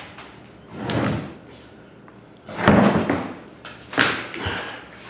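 Heavy thumps of a skinned longhorn skull and its horns knocking against a wooden worktable as the lower jaw is wrenched loose: three separate knocks, the loudest near the middle.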